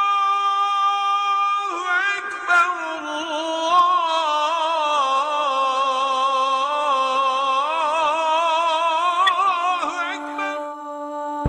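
Unaccompanied solo voice chanting an Islamic religious phrase in a melismatic style: one long held note, then a long wavering, ornamented line that fades out near the end.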